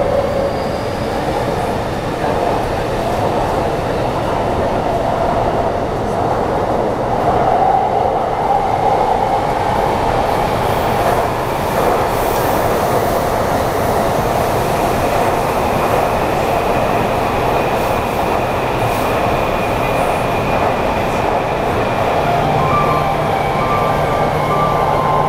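Taipei Metro C381 train running through a tunnel, heard from inside the passenger car: a steady rumble and rail noise. Over the first eight seconds or so the motors' whine rises in pitch, and a higher whine falls near the end.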